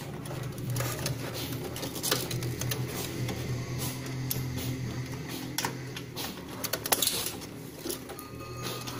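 Hands handling cables and connectors inside a desktop PC case: scattered plastic and metal clicks and rattles, the sharpest about two seconds in and near seven seconds. A steady low hum underlies it, dropping out about six seconds in and coming back near the end.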